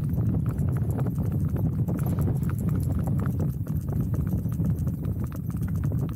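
Horse's hooves clip-clopping in a steady, continuous rhythm as it is ridden along a track, with a steady low rumble underneath.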